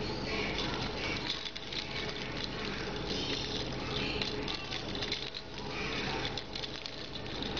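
A rainbow lorikeet rolling on its back on newspaper, rustling the paper and knocking about a plastic lattice ball toy: a steady run of small scuffs, clicks and taps.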